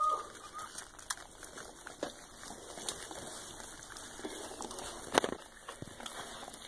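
Faint wet licking and shuffling as a Soft Coated Wheaten Terrier mother cleans her newborn puppies. A short high squeak comes at the very start and a sharp click about five seconds in.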